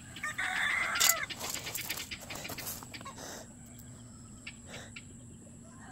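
Chickens clucking in the first second or so, followed by a couple of seconds of close clicks and knocks, then quieter to the end.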